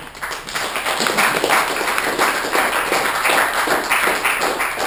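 Audience applauding: a dense patter of hand claps that swells during the first second and holds.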